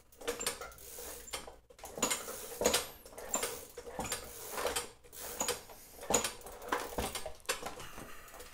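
Weighted crank and chain of a bicycle converted into a centrifugal air-compressor rig, spun by hand, rattling and clicking in a repeating rhythm of about one to two clatters a second as it is built up to speed.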